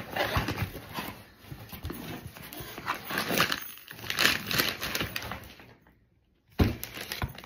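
Cardboard box and paper packaging rustling and crinkling as items are pulled out of the box by hand. Near the end the sound drops out briefly, then a sudden thump.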